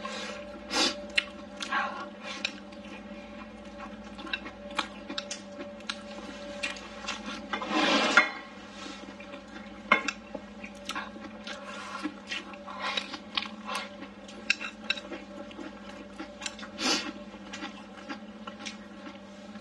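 Close-miked eating: chopsticks clicking and scraping against a wooden bowl while mouthfuls of rice and blistered green peppers are chewed. There are many small clicks and a longer, louder noise about eight seconds in, over a steady low hum.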